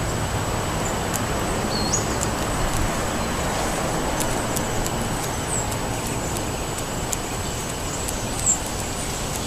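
Steady wind noise with a low rumble, and a few short, faint, high bird chirps scattered through.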